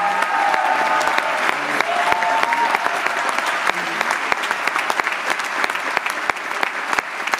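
A large theatre audience applauding steadily, with a few voices calling out over the clapping in the first three seconds.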